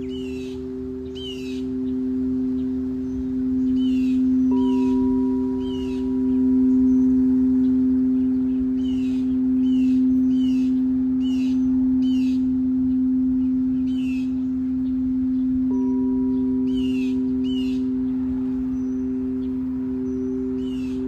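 Singing bowls ringing in two steady, sustained low tones that slowly swell and fade, with a higher bowl tone joining twice. Over them a bird repeats short falling chirps in quick groups.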